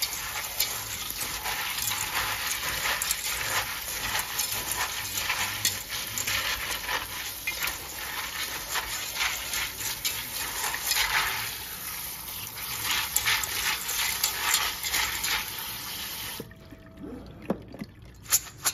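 Kitchen sink sprayer running onto dried pinto beans in a stainless steel colander while a hand stirs them, the beans clicking and rustling under the spray. The water shuts off near the end, leaving a few light knocks as the colander is handled.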